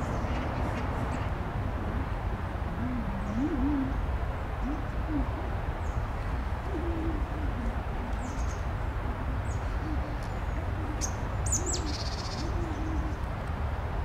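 A dove cooing: low, wavering rise-and-fall coos repeated many times, over a steady low outdoor rumble.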